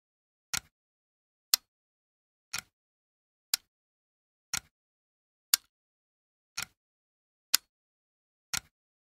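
Antique gold clock ticking about once a second, alternating a sharper tick with a softer, doubled tock, with nothing heard between the beats.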